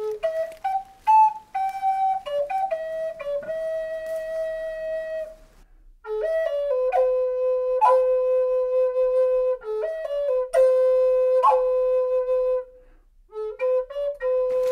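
Background music: a slow solo flute melody of mostly long held notes, breaking off briefly twice between phrases.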